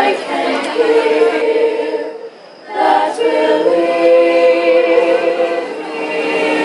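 An a cappella choir singing held chords in several parts, breaking off briefly about two seconds in and then singing on.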